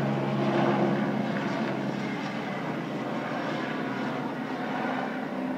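Firefighting helicopter flying overhead: a steady drone of rotor and engine that slowly fades as it moves away.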